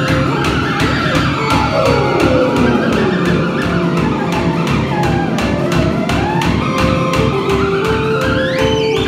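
Live garage-rock band playing: a fast, steady drum beat under held notes, with a theremin swooping in long glides, falling low about two seconds in and climbing sharply high near the end.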